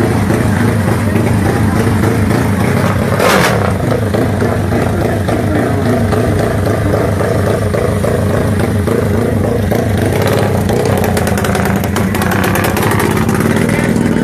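Turbocharged, fuel-injected Honda Sonic drag bike engine running loudly with a steady low note, a short sharp burst about three seconds in, and a rapid clatter over the last few seconds.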